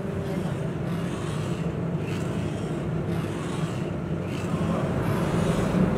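Electric motor-driven sand mixer running, its paddles churning grey moulding sand in a steel trough: a steady low mechanical hum with a gritty scraping haze above it.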